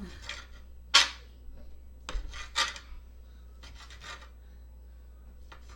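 A kitchen utensil scraping in short, irregular strokes while food is prepared, about six strokes with the loudest about a second in.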